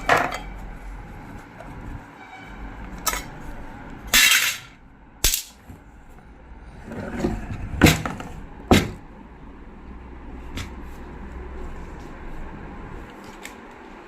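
Metal tools and parts of a zig-zag sewing machine knocking and clinking as the machine is worked on and taken apart, in about eight separate sharp knocks with a longer scraping rattle about four seconds in.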